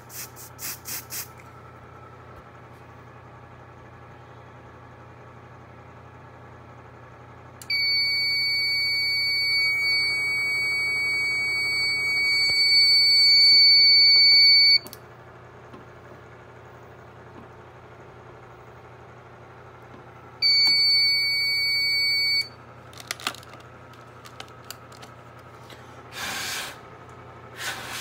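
Aerosol canned test smoke sprayed in a few short puffs at a photoelectric smoke detector. About eight seconds in, the fire alarm system goes into alarm with a loud, steady, shrill tone that lasts about seven seconds and stops suddenly when it is silenced at the panel. It sounds again for about two seconds near 20 s.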